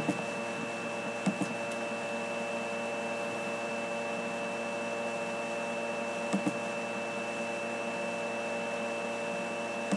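Steady background hum and hiss with a constant high-pitched whine, broken by a few faint clicks.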